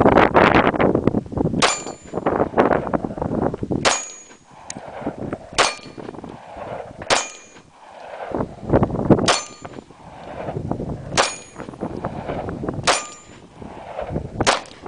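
Glock 23 .40 S&W pistol fired eight times at a slow, steady pace, about one shot every two seconds, each shot followed by the short ring of a steel target being hit. Wind rumbles on the microphone between shots.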